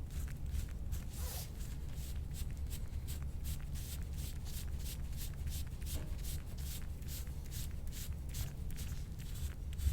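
Hands rubbing over a patient's body in quick, repeated massage strokes, about four a second, over a steady low hum.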